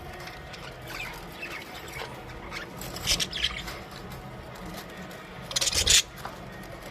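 Budgerigars chirping and chattering in short scattered calls, with two louder rasping bursts, one about three seconds in and a longer one near six seconds.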